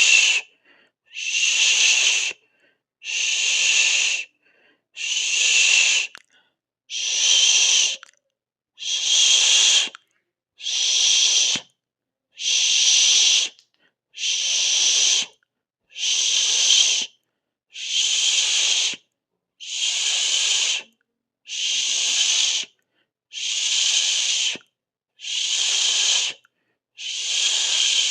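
A person making a drawn-out 'sss' hiss over and over, each hiss a little over a second long and about two seconds apart, with silence between them.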